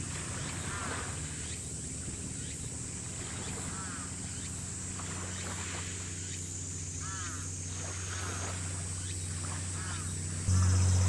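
Birds calling again and again, short arching calls, over a steady low mechanical hum. Near the end a much louder steady low tone starts suddenly.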